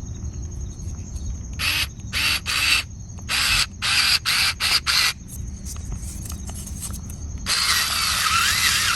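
HOTO NEX O1 Pro 3.6 V cordless electric screwdriver working a bit into a hole in a run of about eight short bursts. About seven and a half seconds in it settles into one longer continuous run with a wavering squeal.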